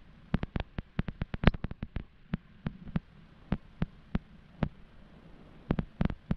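Irregular sharp knocks and rattles as a bicycle and its mounted camera jolt over a rutted dirt road. They come in quick clusters in the first two seconds, thin out, then bunch again near the end.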